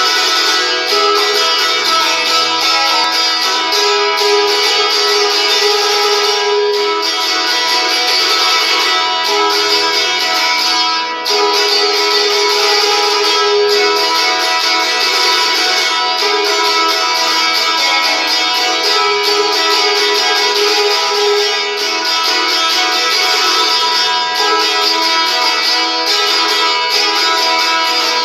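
A saz, the long-necked Azerbaijani lute, played solo with rapid strummed strokes: a melody picked out over steadily ringing drone strings.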